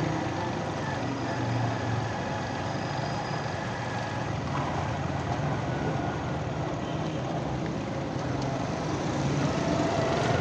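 Motorcycle engine running steadily while riding, mixed with road and traffic noise. Another vehicle's engine note rises near the end.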